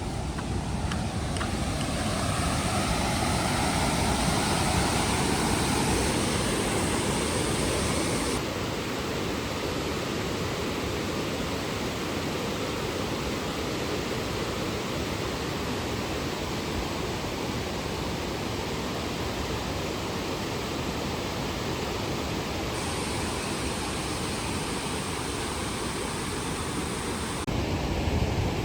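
Steady rush of water from a large waterfall. Its tone shifts abruptly a few times, as at cuts between shots.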